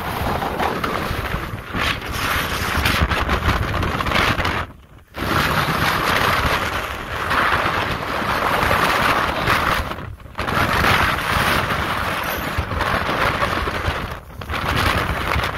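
Strong wind buffeting a phone's microphone: a loud, gusty rush of noise that cuts out abruptly three times.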